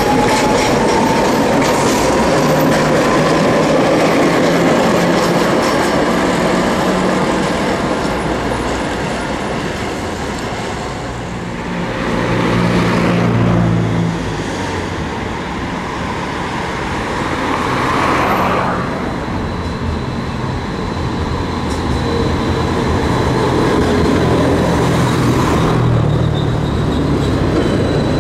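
Red Tatra KT4 articulated tram passing close by on its rails, running gear rumbling, with a whine rising in pitch in the first seconds. Later, road traffic passes along the street beside the tracks, with a motorcycle coming up near the end.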